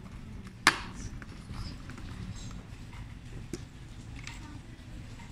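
Plastic dust container and latch of a Kranich canister vacuum cleaner being handled: one sharp, loud click a little under a second in, then a few fainter clicks over steady handling noise.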